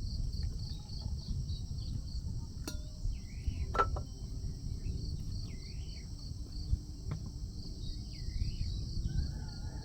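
Insects calling with a high, steady trill that pulses about five times a second. A bird gives a short swooping call about every two and a half seconds, over a low rumble.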